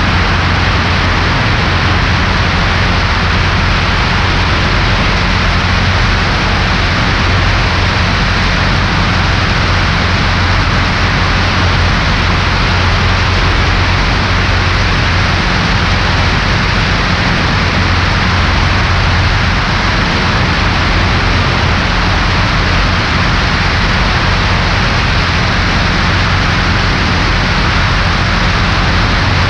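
Cessna 140A's engine and propeller droning steadily in flight, a constant low hum under loud, even wind and airframe hiss.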